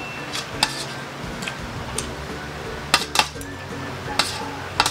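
Metal spoon and fork clinking and scraping on a stainless steel tray while scooping up rice: a series of sharp clinks, the loudest pair about three seconds in. Background music plays underneath.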